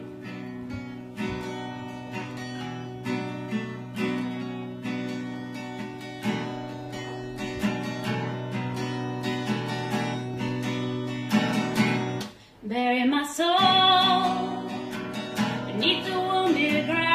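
Acoustic guitar playing the introduction to a folk song, breaking off briefly about twelve seconds in; a woman's voice then starts singing over the guitar.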